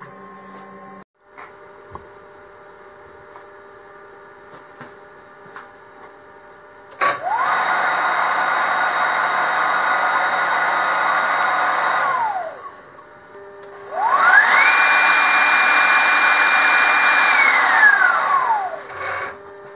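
CNC router spindle motor spinning up with a rising whine, running at a steady pitch for several seconds, then winding down. A second run follows at a higher speed, holding a higher whine before it winds down near the end. Before the first run there is only a quiet machine hum.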